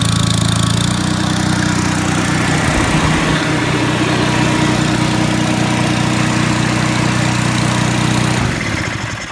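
Onan W2C generator engine running under an electrical load, its pitch shifting about a second in and wavering around three seconds, then shut down near the end and winding to a stop. The set is not holding voltage or frequency under load, which the owner puts down to the carburetor.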